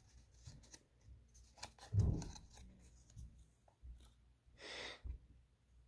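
Quiet handling noises of paper and small objects being moved about: scattered small clicks and rustles, a soft thump about two seconds in, and a brief rustle about four and a half seconds in.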